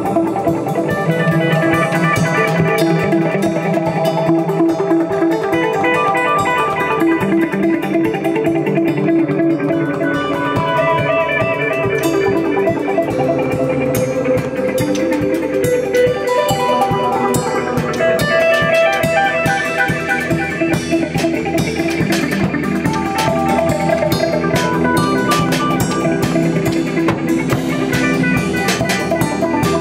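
Improvised instrumental rock jam: guitar playing quickly repeated plucked notes over bass, with light percussion, at a steady, full level.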